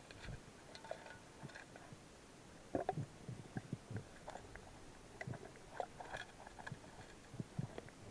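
Muffled underwater knocks and clicks, irregular and scattered, loudest in a cluster about three seconds in, as a spearfishing diver moves through submerged branches.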